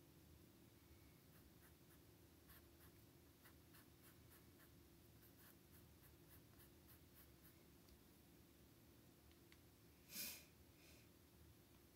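Near silence with faint dabbing and scratching of a fine paintbrush on a stretched canvas, short strokes coming a few times a second. About ten seconds in there is one brief, louder rustle.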